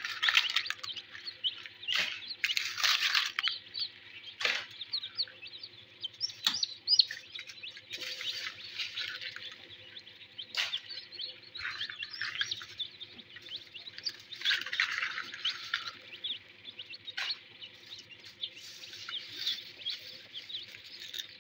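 A tray of newly hatched chicks peeping constantly in a dense, shrill chorus, with a few sharp clicks and crackles of broken eggshell being gathered off the wire hatching rack.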